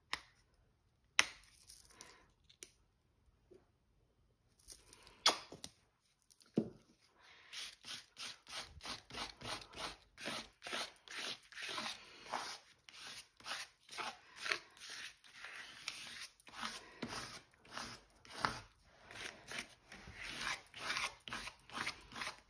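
Acrylic paint being spread across a sheet of paper in quick, scratchy back-and-forth strokes, about three a second, after a few knocks and clicks of supplies being handled.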